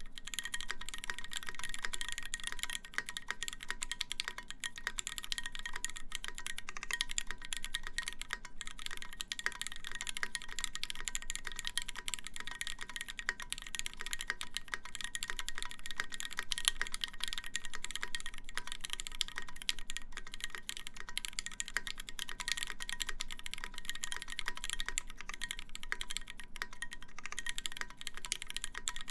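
Steady fast typing on a custom mechanical keyboard with lubed Cherry MX Black linear switches, a stainless steel plate and GMK keycaps: a dense, unbroken stream of keystroke clacks.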